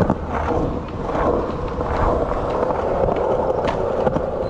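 Skateboard wheels rolling steadily over smooth concrete, a continuous rumbling hum, with a couple of sharp clicks near the end.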